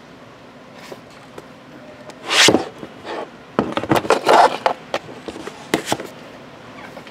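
Handling noise on a tabletop close to the microphone: a short scrape about two and a half seconds in, then a quick run of knocks and taps and two more knocks near the end, as things by the laptop are moved about by hand.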